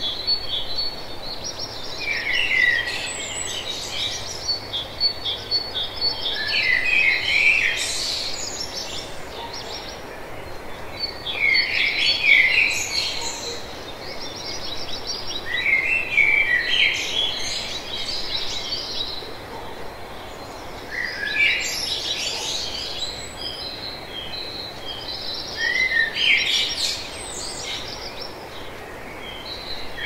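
Songbirds singing and chirping in a morning chorus, a cluster of quick song phrases every four or five seconds over a steady background hiss. A high, even trill runs through the first few seconds.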